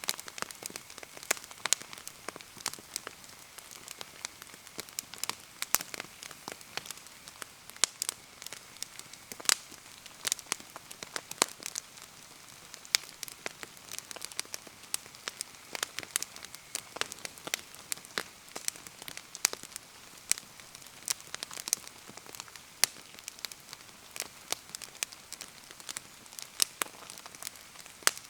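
Wood bonfire crackling in the rain: irregular sharp pops and raindrop ticks, several a second, over a steady hiss of rainfall.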